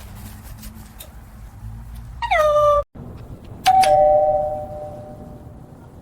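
A doorbell chime rings out and slowly fades. About a second before it, a short pitched sound slides down in pitch and cuts off abruptly. A low background rumble runs underneath.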